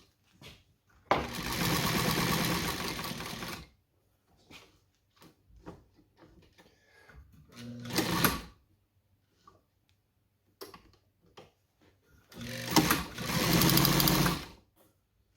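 New Home Paragon class 15 straight-stitch sewing machine running in three bursts: a run of about two and a half seconds, a short one near the middle, and another of about two seconds near the end, with small clicks between them.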